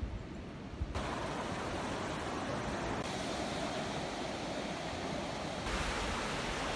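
Pacific Ocean surf washing onto a sandy beach as a steady rush of noise, with wind on the microphone. The sound changes abruptly about a second in, again about three seconds in, and once more near the end.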